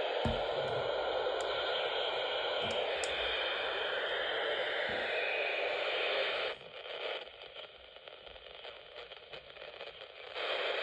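Eton Microlink FR160 weather radio hissing with static on a weak NOAA weather band signal, with a few faint knocks as it is handled. About six and a half seconds in, the hiss drops away to a much fainter crackle as the channel changes, and a short burst of hiss comes near the end.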